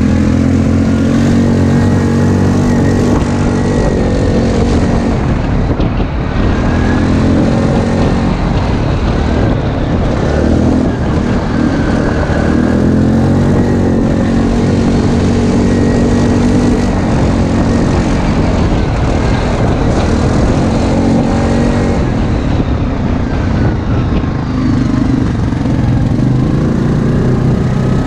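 ATV engine running under load off-road, the revs climbing and falling again every few seconds as the throttle opens and eases. It is loud throughout.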